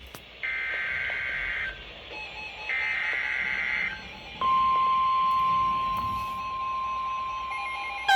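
Emergency Alert System SAME header: two bursts of screechy digital data tones, each about a second long with a pause between. About four seconds in, a single steady 1050 Hz weather warning alert tone starts and holds; it is louder than the bursts.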